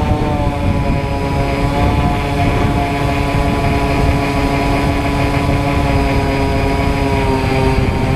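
Radio-controlled FPV model airplane's motor and propeller heard from its onboard camera: a steady, multi-toned whine that dips slightly in pitch at the start and then holds, wavering a little, over a low rumble.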